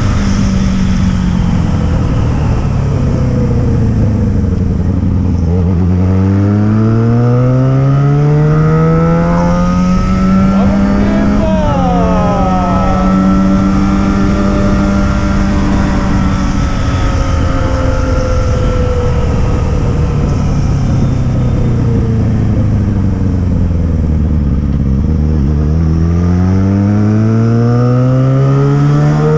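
Yamaha XJ6's inline-four engine and exhaust running loud, its revs sweeping slowly up and down. The pitch falls at the start, climbs over a few seconds and holds, then eases down and climbs again near the end.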